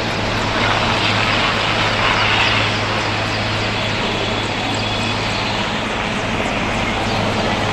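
Navy helicopter flying over the water, a steady rush of rotor and turbine noise over a constant low hum. It is a little louder around two seconds in, and the highest frequencies thin out in the second half.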